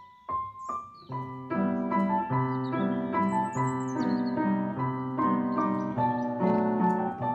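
Background piano music: a few single notes, then a steady flowing pattern of chords from about a second in.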